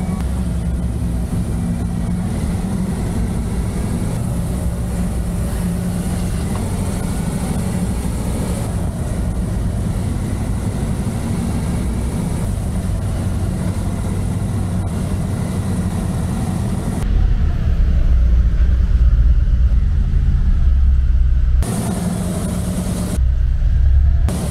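Harley-Davidson Street Glide Special's V-twin engine running at low speed, a steady low rumble. About two-thirds of the way through it turns deeper and heavier and the high end drops away, switching back briefly near the end.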